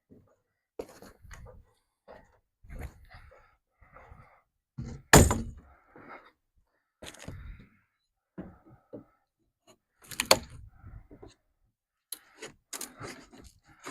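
Wooden shipping crate being taken apart by hand: boards knocked, pried and scraped loose in irregular clatters, with two loud sharp bangs about five and ten seconds in.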